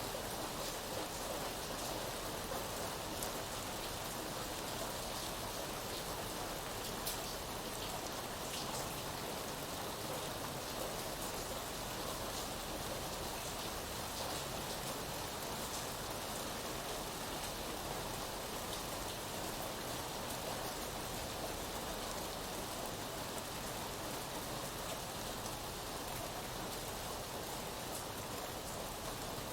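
Steady rain falling, with scattered individual drop ticks over an even hiss.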